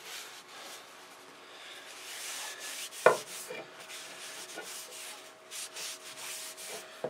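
Cloth rubbing and wiping boiled linseed oil off a hatchet's steel head and wooden handle, with a single sharp knock about three seconds in.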